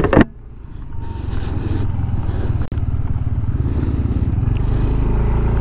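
Small motorcycle engine pulling away and running steadily as the bike rides a dirt trail, growing louder from about a second in. A brief loud knock right at the start.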